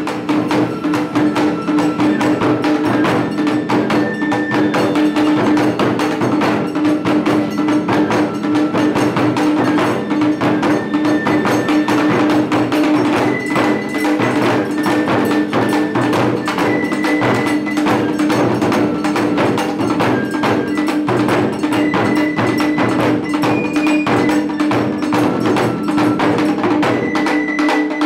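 Japanese taiko drum ensemble playing a fast, continuous rhythm on large barrel drums and small drums on stands, over a steady hum.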